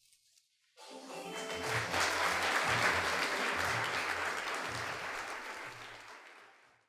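Audience applauding with music that has a steady bass beat mixed in, both starting about a second in and fading out near the end.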